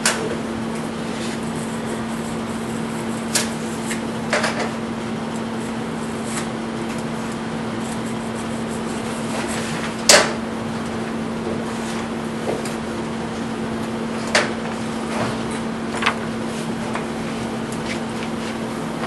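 Short clinks and knocks of copper tubing being handled, about six of them, the sharpest about ten seconds in, over a steady hiss and low hum.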